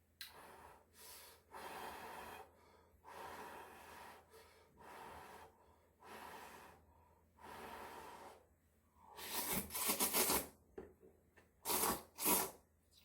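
Close-miked eating sounds in a string of short noisy bursts, the loudest about nine to ten seconds in and two sharp ones near the end.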